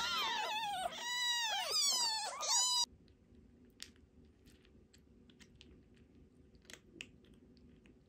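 A very young kitten crying loudly in a quick string of high-pitched mews while it is wiped with a tissue to make it toilet. About three seconds in the cries cut off, and soft scattered crunching clicks follow: a kitten chewing dry kibble from a bowl.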